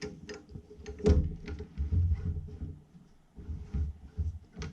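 A few sharp clicks and soft knocks from a Milwaukee open-reel tape measure being handled, its blade pulled taut and its parts folded.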